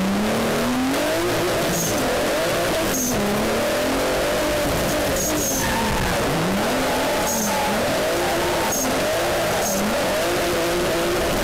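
Twin-turbo 3.8-litre V6 drift car engine revving up and down again and again under throttle during a drift, over steady tyre noise, heard from beside the front wheel. Short sharp bursts come every second or two.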